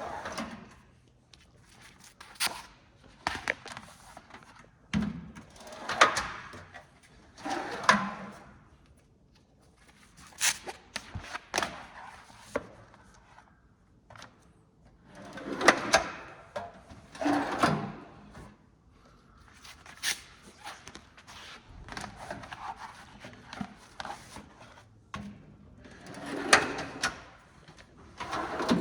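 Husky tool chest drawers being slid open and shut over and over, a sliding rush each time with sharp clicks and thunks as they stop and latch, while drawer liner mats are laid in.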